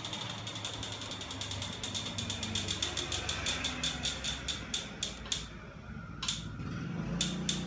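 Homemade magnet crankshaft engine, driven by a small electric motor off a 24 V battery, running with a fast, regular clicking. The clicks quicken to about six a second, then thin out to a few separate clicks near the end, over a low hum.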